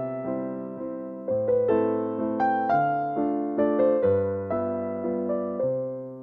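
Background music: a gentle piano melody, each note struck and then fading away.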